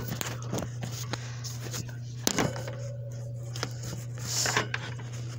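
Handling knocks, clicks and rustles from a phone camera being moved about, with one sharp knock a little over two seconds in, over a steady low hum.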